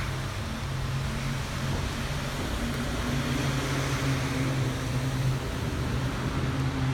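Steady rain hiss, with a low steady hum underneath.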